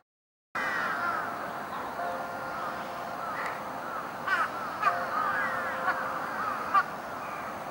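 Many birds chattering and calling together, with a few louder sharp calls in the second half. Under them, faint long held notes of the evening chime melody come and go, played over the public loudspeakers.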